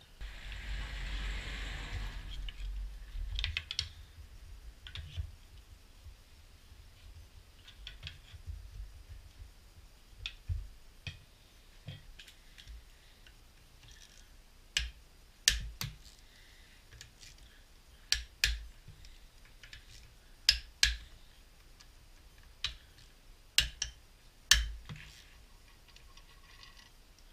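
Hand tools on a bare engine: a socket wrench with a long extension bar clicking and clinking against the metal of the steering-pump bracket as its bolts are worked. The sharp metallic clicks come singly or in quick pairs, loudest in the second half, with a brief rustling scrape at the very start.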